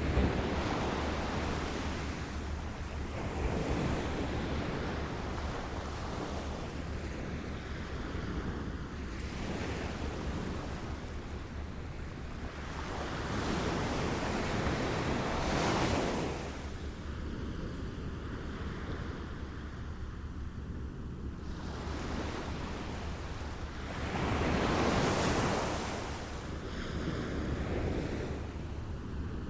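Small waves lapping at the shore, a continuous wash that swells and falls back every several seconds. A steady low rumble of wind on the microphone runs underneath.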